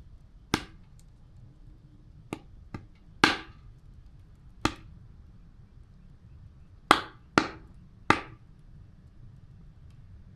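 Campfire wood popping and cracking: about eight sharp, irregular pops over a faint steady low background noise.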